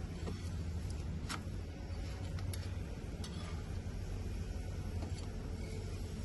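Paratha cooking on an iron griddle over a wood-fired clay stove: a steady low rumble with a few faint clicks and ticks.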